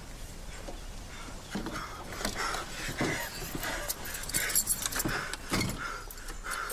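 A bunch of keys jangling and clinking, with scattered knocks, getting busier and louder partway through.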